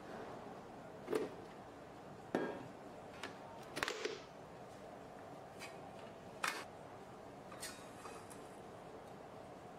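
A handful of short clinks and knocks scattered over several seconds, from a stainless steel mixing bowl being taken off a stand mixer's base and a round aluminium cake pan being handled, over a low steady hiss.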